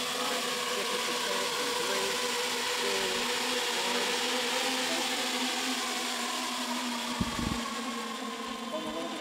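The ten electric motors and propellers of NASA's GL-10 battery-powered tilt-wing prototype, a steady many-propeller whine with several pitches at once, as the plane goes from hover into forward flight and climbs away, fading slightly near the end. A brief low rumble comes about seven seconds in.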